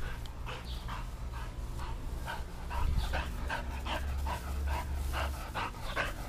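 A dog panting quickly, about three breaths a second, with a steady low rumble underneath.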